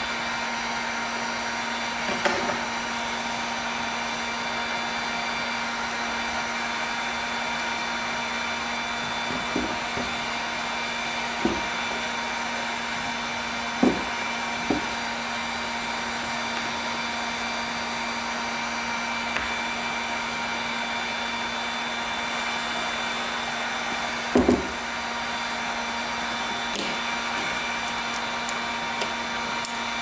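Electric heat gun running with a steady blowing hum. A few short knocks, of tools set against the work, come through it.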